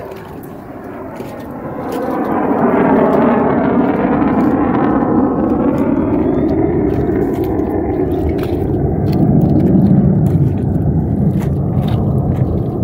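Jet noise from a USAF Thunderbirds F-16 fighter flying past, swelling about two seconds in with a sweeping, phasing sound as it passes. The noise stays loud and peaks again near the end.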